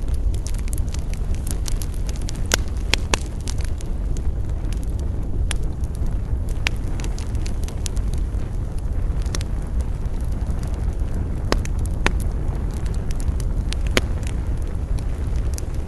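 Wood campfire crackling, with scattered sharp pops at irregular intervals over a steady low rumble.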